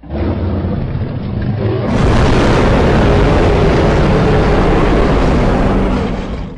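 Designed giant-monster roar sound effect: a deep, rough, rumbling roar that starts abruptly, swells louder and fuller about two seconds in, holds, and drops away near the end.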